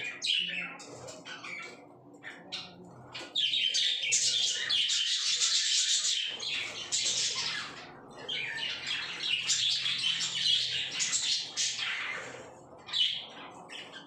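A flock of budgerigars chattering, a dense, high-pitched stream of chirps and calls that grows louder for two long stretches of a few seconds each.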